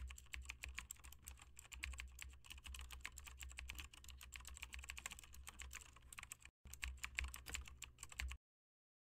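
Rapid, dense clicking of typing on a computer keyboard. It breaks off briefly about six and a half seconds in and stops abruptly a little after eight seconds.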